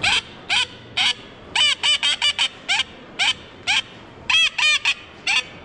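Mouth-blown wooden duck call imitating a hen teal: a series of short, high quacking notes, some single and some in quick runs of three or four.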